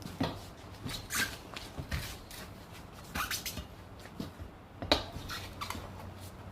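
Hand tools clinking and scraping against a motocross wheel rim as the old tyre is worked off the bead, in irregular knocks with one louder knock about five seconds in.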